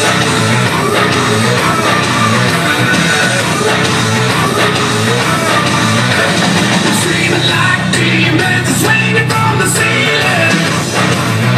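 Loud rock music with guitars and a singing voice.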